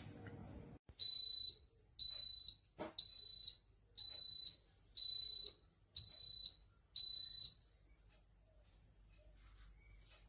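Electronic beeper of a compressor ice cream maker sounding seven short, high, single-pitch beeps, about one a second, with a faint click between the second and third.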